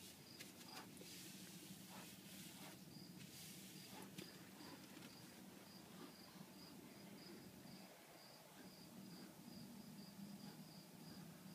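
Faint cricket chirping, a high chirp repeating about twice a second, over a low steady hum, with a few soft rustles in the first few seconds.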